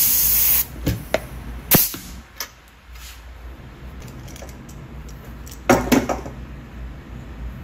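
Pneumatic rivet squeezer's air hissing, cutting off about half a second in, followed by a few sharp metallic clicks. Near six seconds, a louder clatter of knocks as the clamp and aluminium hinge bracket are handled.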